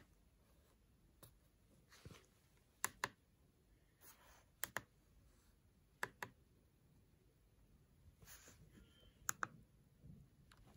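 Keys on a TC55H CNC controller's keypad being pressed. There are several separate presses a second or two apart, most heard as a quick double click.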